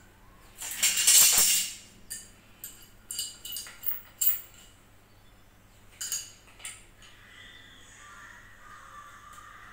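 Small plastic and metal plumbing fittings handled and screwed together in the hands: a loud noisy burst lasting about a second near the start, then a run of light clicks and clinks.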